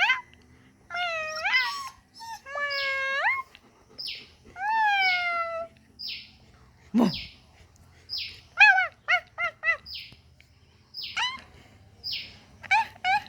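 A dog "talking": a string of drawn-out whining cries that slide up and down in pitch, then a quick run of short yips about nine seconds in.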